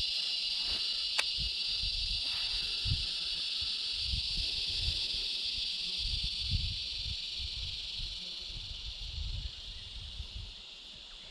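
A steady high-pitched hiss that fades gradually over the last few seconds, with irregular low rumbles underneath.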